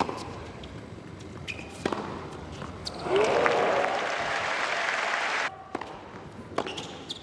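Tennis ball hit and bouncing on an indoor hard court, then an arena crowd cheering and applauding from about three seconds in, which cuts off abruptly. A few more sharp ball bounces follow near the end.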